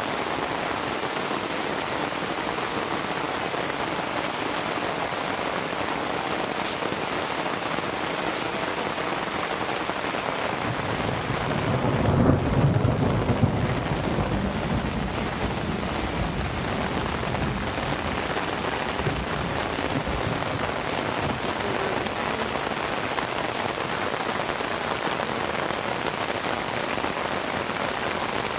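Heavy rain falling steadily in a downpour, with a low roll of thunder that swells about twelve seconds in and fades over a few seconds.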